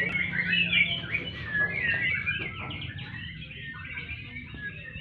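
Several white-rumped shamas (murai batu) singing at once: a dense tangle of quick whistles, trills and chirps, loudest in the first second.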